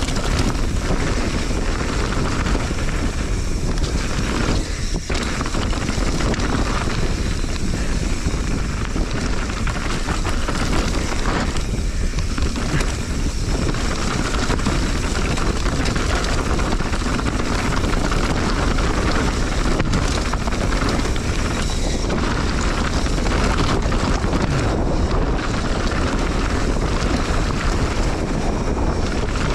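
Loud, steady wind buffeting on the microphone of a mountain bike action camera while riding downhill, mixed with the rumble of knobby tyres over a rocky dirt singletrack.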